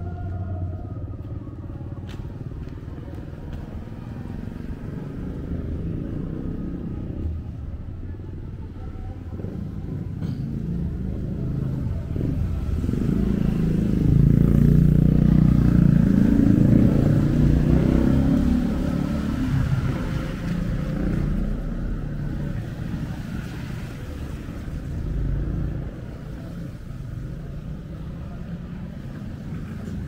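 Motorcycle engine passing close on a street, getting louder over several seconds, loudest near the middle, then fading away, over a steady low traffic rumble.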